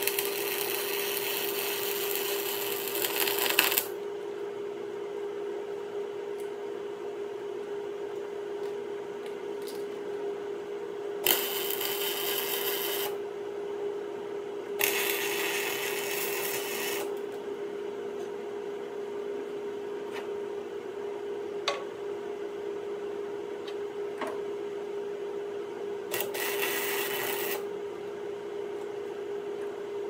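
Arc welder crackling and sizzling in four separate beads of about two seconds each, welding a repair onto the shaker of a John Deere 9500 combine, over a steady low hum.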